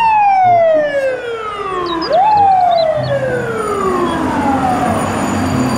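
Fire truck siren wailing: the pitch starts high and falls steadily, swoops back up about two seconds in, then falls slowly again.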